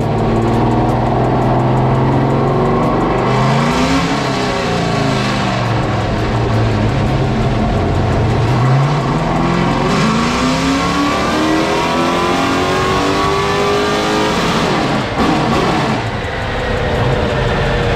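GM 604 crate engine, a carbureted small-block Chevy V8 with a Holley carburetor, running on a chassis dyno with its ignition timing advanced to 34 degrees total. The engine revs up and back down, then makes a long wide-open-throttle pull rising steadily in pitch for about six seconds before the throttle is lifted and the revs drop away about fifteen seconds in.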